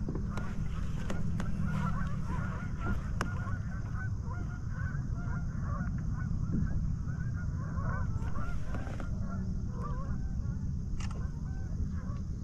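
A flock of geese honking, many short calls overlapping over a steady low rumble.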